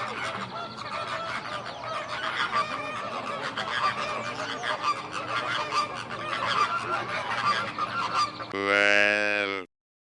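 A flock of geese honking, many calls overlapping. About eight and a half seconds in it cuts to a single loud, low, drawn-out animal call lasting about a second, which stops abruptly.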